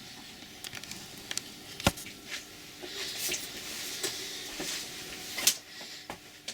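Handling noise as an object is picked up and turned over by hand: light rustling with scattered small clicks and knocks, and a sharper knock about two seconds in and again about five and a half seconds in.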